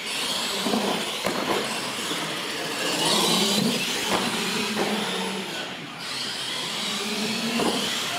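Radio-controlled monster trucks racing on a concrete floor, their motors whining and rising and falling in pitch, with a few sharp knocks as a truck hits and lands off a jump ramp.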